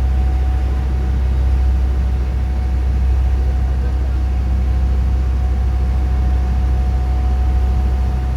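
A water taxi's engine running steadily under way: a loud, low, unchanging drone with a thin steady whine above it.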